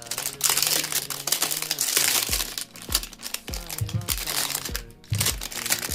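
Packaging crinkling and rustling as a parcel is unwrapped, dense through the first few seconds and again near the end, over a song with a steady bass beat.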